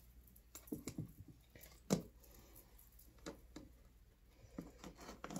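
Soft, scattered knocks and taps of pieces of fresh ginger root being handled and dropped into a glass mason jar. The loudest knock comes about two seconds in.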